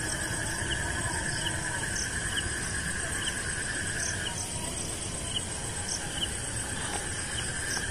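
Insects chirping: a steady trill that breaks off about halfway through and comes back near the end, over short chirps repeating a little faster than once a second.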